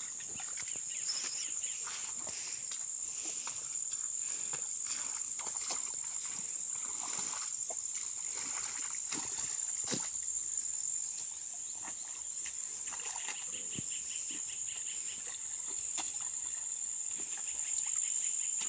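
A steady high-pitched drone of insects chirring in grass, with scattered rustles and knocks from someone wading through tall grass and weeds.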